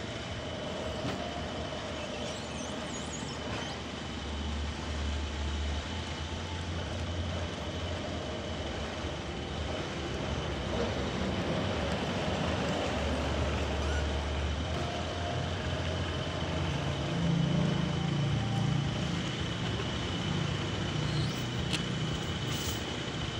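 Sawmill machinery running steadily while sawing a trembesi (rain tree) log: a low engine rumble that swells and eases, under a steady high whine.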